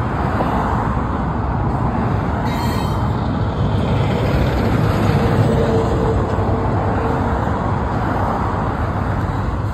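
Double-stack intermodal freight train rolling past: a steady rumble of wheels on rail. A thin steady whine comes in for a couple of seconds around the middle.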